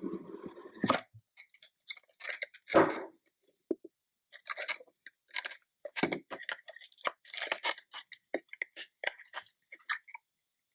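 Hands unpacking a speed cube's packaging: irregular rustles, light clicks and scrapes of plastic and cardboard being handled, with a few sharper knocks.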